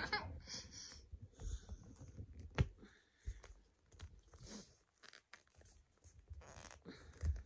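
Faint clicks and rustles of a small lipstick box being handled, with one sharp click about two and a half seconds in.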